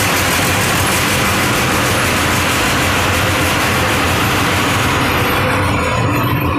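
Veneer mesh-belt continuous dryer running: a loud, steady machine rush with a low hum, from its hot-air circulation fans and belt drive. The high hiss thins out about five seconds in.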